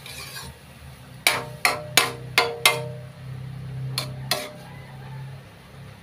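Metal spatula tapped sharply against the rim of a wok, with a short metallic ring after each tap. There are five quick taps, then two more a little over a second later, over a low steady hum.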